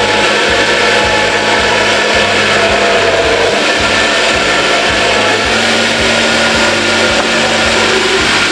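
Countertop blender running steadily, its blades churning a thick sauce of cheese, milk and ají pepper.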